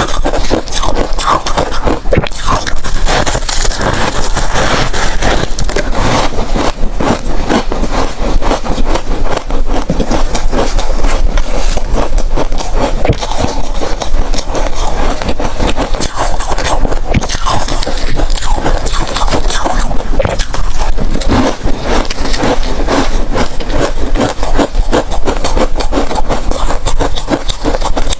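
Ice being bitten and chewed right at the microphone: a loud, unbroken run of crisp cracking and crunching.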